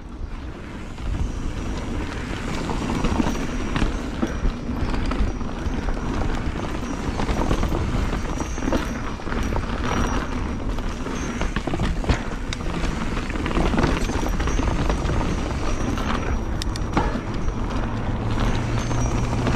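Wind rushing over an action camera's microphone on a fast mountain-bike descent, with the tyres on dirt and the bike rattling over bumps in many short knocks. A low steady hum comes in near the end.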